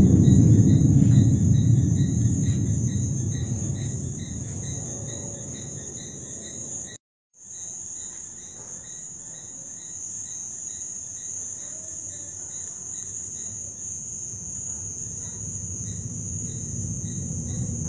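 Crickets chirping in a steady, regular rhythm at night, under a loud low rumble that fades away over the first few seconds. After a brief dropout the chirping continues and the low rumble swells up again near the end.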